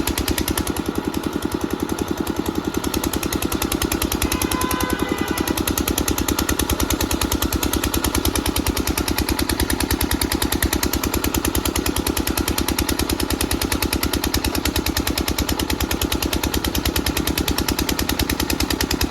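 5 kVA portable generator's engine running steadily, with a fast, even beat of firing strokes.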